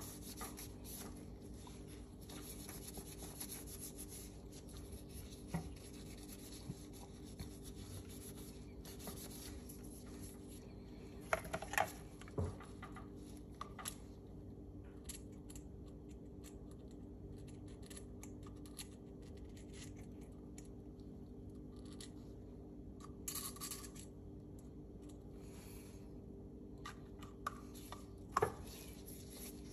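Gloved hands handling and wiping a Tanfoglio Stock II pistol frame during cleaning: soft rubbing and scratching with scattered light clicks of metal parts, the loudest clicks a little before the middle and near the end, over a steady low hum.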